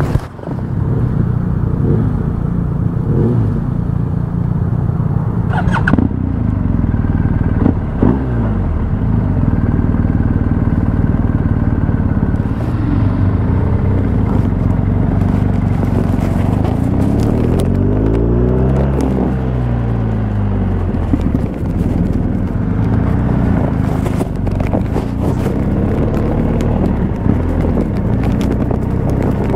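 Adventure motorcycle engine running under way, its pitch rising and falling with throttle and gear changes, with a few sharp clicks about a third of the way in.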